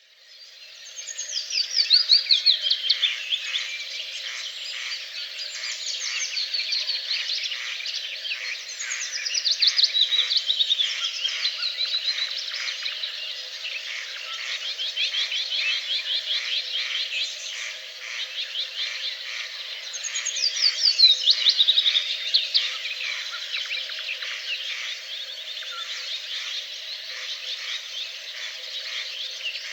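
Birdsong: a bird repeats a phrase of rapid notes that fall in pitch, about every ten seconds. Under it runs a steady, pulsing background chorus.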